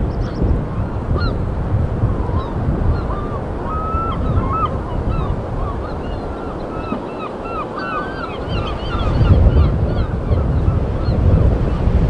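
Many short, overlapping calls from a flock of birds, coming thick in the middle of the stretch, over a steady rumble of wind on the microphone that grows louder near the end.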